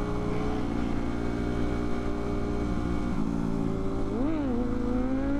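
Motorcycle engine running steadily, with a quick throttle blip a little over four seconds in that raises and drops the pitch before it settles a bit higher.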